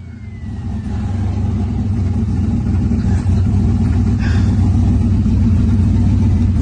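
Turbocharged car engine running at a steady, low pitch, growing steadily louder.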